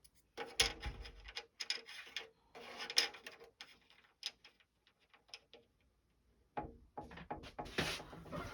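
Small objects being sorted through by hand on a workbench: irregular clicks, light knocks and rubbing as items are picked up and set down.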